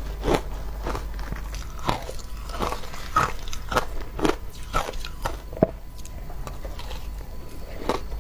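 Close-miked bites and chewing of crunchy frozen shaved ice. The sharp, irregular crunches come about every half second, ease off for a couple of seconds near the end, then start again.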